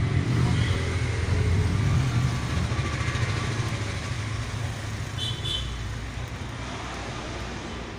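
Low road-vehicle rumble, loudest in the first two seconds and then slowly fading, as of traffic passing. A brief high double beep comes about five seconds in.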